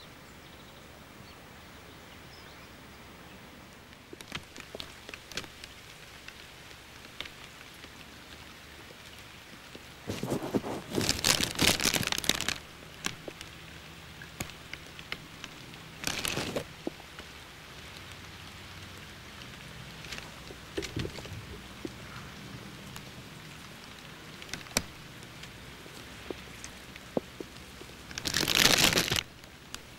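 Rain hitting a plastic bag wrapped over the camera: scattered crackling ticks, with three louder crackling bursts, the longest about ten seconds in and the last near the end.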